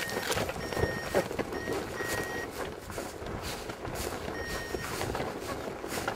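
Short electronic beeps at one high, steady pitch, about six of them at uneven intervals with a gap of about two seconds near the middle, typical of a hang glider's variometer. Underneath, rustling and clicks as the glider's control bar moves through tall grass.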